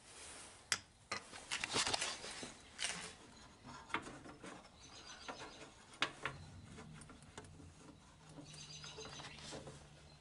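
Scattered light clicks, taps and rustles of parts being handled, with faint high chirps twice.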